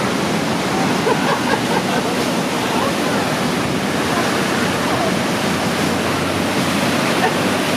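The Rhine Falls waterfall and the churning whitewater at its base, heard up close from a boat: a loud, steady rush of falling water.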